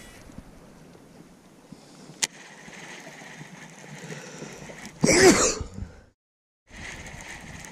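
A single sharp click about two seconds in, then a short, loud vocal burst from the man, like a sneeze, about five seconds in, which cuts off suddenly. A light, steady background noise runs underneath.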